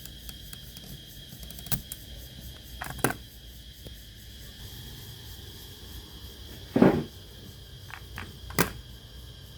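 A few separate clicks and knocks at uneven intervals, the loudest a heavier knock about seven seconds in, from handling and working on a Sony CFS-715S cassette player, over a faint steady high-pitched whine.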